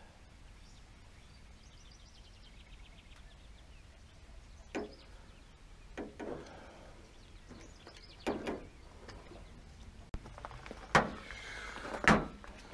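Scattered knocks and clinks of hand tools and metal parts being handled, with a faint rapid ticking about two seconds in. The two sharpest knocks come near the end.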